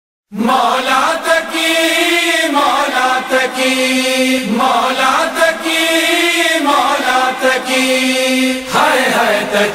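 Nauha recitation: unaccompanied voices chanting a slow melody. The same sung phrase comes twice, and a new phrase begins near the end.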